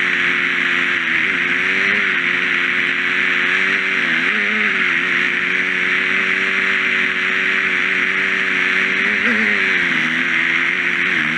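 Small engine running steadily as the vehicle moves, its pitch dipping and recovering a few times, under a strong steady hiss.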